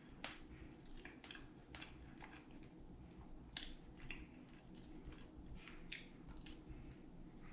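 Faint chewing and crisp crackling as a person eats a fried chicken sandwich, heard as short irregular clicks, with a sharper one about three and a half seconds in.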